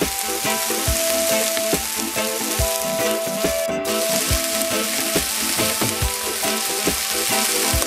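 Pieces of Black Angus beef steak sizzling steadily as they fry in a nonstick pan. Background music with a steady beat plays underneath.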